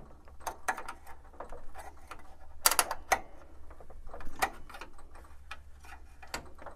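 Screwdriver and hand working the plotter's encoder-strip bracket against the frame, trying to push its hole over the locating peg: irregular clicks, taps and knocks of hard parts, with a sharper cluster of clicks a little under three seconds in.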